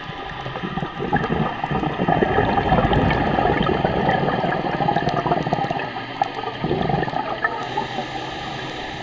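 A scuba diver's exhaled bubbles from the regulator, gurgling and crackling underwater. They build about a second in and ease off near the end.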